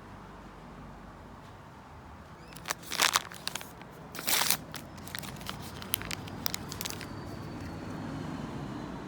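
Plastic packaging of a mini brands mystery ball being handled and opened: sharp plastic clicks and crinkles, loudest about three seconds in and again near four and a half seconds, then lighter taps, over a low steady background rumble.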